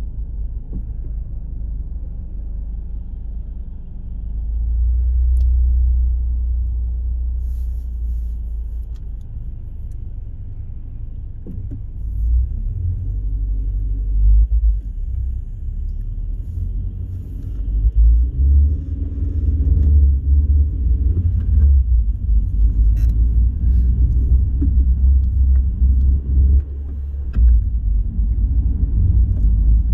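A car driving at motorway speed: a deep, uneven road and engine rumble that swells a few seconds in and grows heavier and choppier in the second half.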